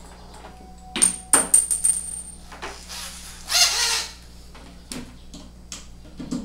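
A quick run of sharp metallic clinks about a second in, with a brief high ring after them, like small metal hardware or a tool knocking together. A short scraping sound follows about three and a half seconds in.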